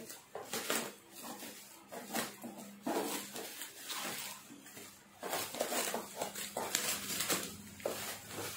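Bubble-wrap packaging being cut open with scissors: irregular plastic crinkling and rustling with scissor snips.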